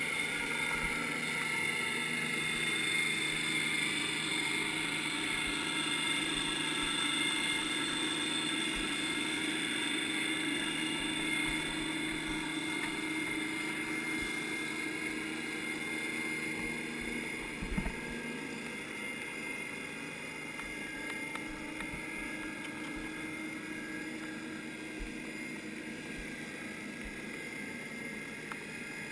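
Steady mechanical hum with several high whining tones, picked up underwater. There is one sharp knock about eighteen seconds in.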